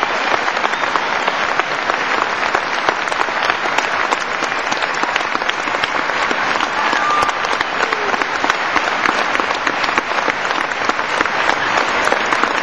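Audience applauding: a steady, dense mass of hand claps that keeps up without a break.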